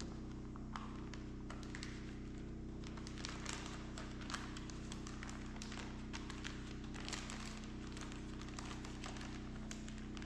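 White freezer paper crinkling and rustling in irregular little crackles as it is folded by hand around a portion of ground chicken, over a steady low hum.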